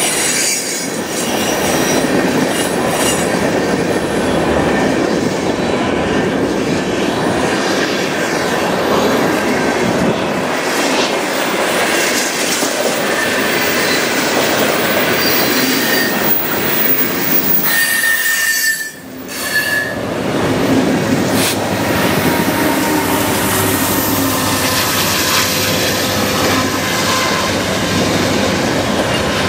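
Freight train's tank cars rolling across a steel trestle: a steady rumble and clatter of wheels on the rails, with brief high-pitched wheel squeals now and then, and a short lull about two-thirds of the way through.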